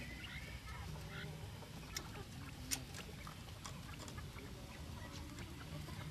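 Caged quails chirping softly, mostly in the first second or so, over a steady low rumble. Two sharp clicks, about two and two and a half seconds in, are the loudest sounds.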